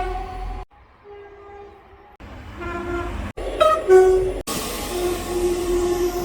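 Train horns in a quick run of short clips, each cut off suddenly: steady blasts at one or two pitches, one of them faint, the last over a loud hiss.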